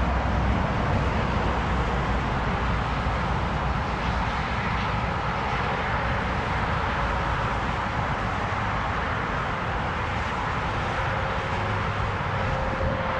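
Steady wind noise outdoors: an uneven low rumble buffeting the microphone under a continuous rushing hiss.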